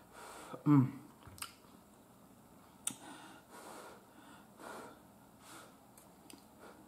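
A person blowing and breathing in short puffs on a forkful of hot roasted potato. About a second in there is a brief hummed "mm", the loudest sound, and two sharp little clicks follow.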